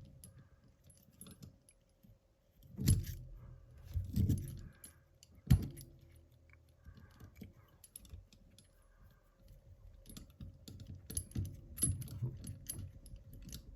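Steel Darby handcuffs clinking and rattling as they are handled while string is forced into the keyhole. Scattered small metal clicks, with a sharp click about five and a half seconds in and busier fiddly clicking near the end.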